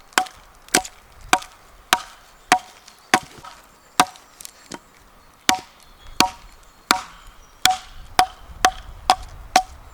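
A steady series of sharp chopping strikes, about one every half second to second, each with a brief ringing note, with a slightly longer pause midway.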